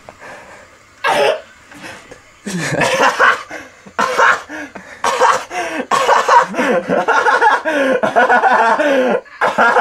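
A man laughing hard and helplessly: a short cough-like burst about a second in, then loud, nearly unbroken laughter from about two and a half seconds in.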